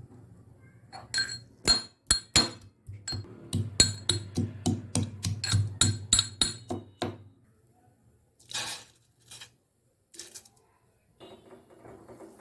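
A spoon clinking against a tea cup in a run of quick, sharp, ringing strikes, as when stirring tea, about three a second, stopping about seven seconds in; a few scattered knocks follow.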